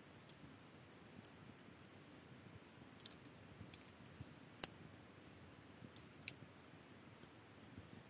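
Wood fire crackling: split logs burning with a faint steady rustle of flame and scattered sharp pops and crackles, the loudest clustered about three, four and a half, and six seconds in.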